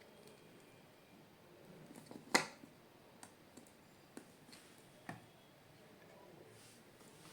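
A few faint clicks and taps from handling small plastic parts of a battery pack, the sharpest click about two seconds in and a lighter one about five seconds in.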